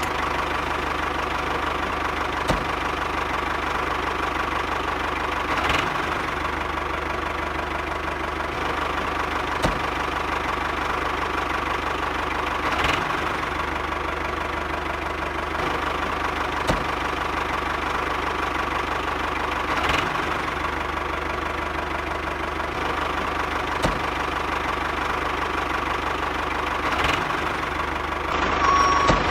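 A motor running steadily with a constant whine, and a sharp click about every three and a half seconds.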